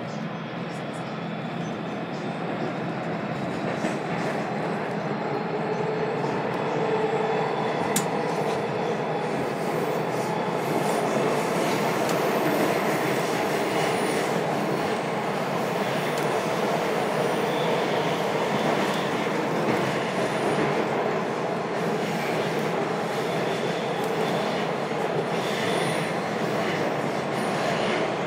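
Washington Metro train running on its rails, a dense rumble that grows louder over the first ten seconds or so and then holds steady, with brief high wheel squeals in the second half.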